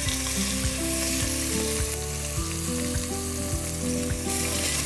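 Bone-in chicken thighs sizzling steadily as they sear in very hot oil in a pot on high heat.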